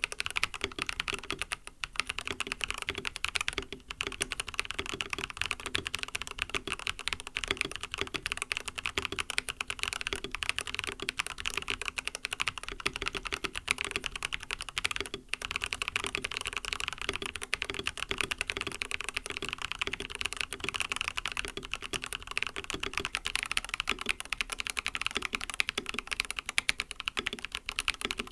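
Continuous fast typing on an mStone Groove T mechanical keyboard with lubed MMD Coral 45 g switches and a silicone plate foam, a dense run of keystrokes with brief pauses about 2, 4 and 15 seconds in.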